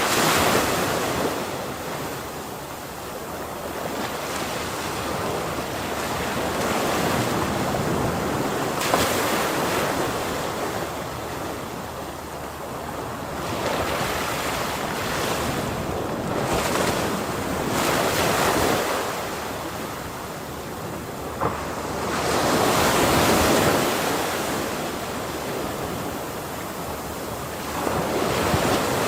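Ocean waves breaking on a shore, the surf swelling and fading in slow surges every few seconds, with wind noise on the microphone.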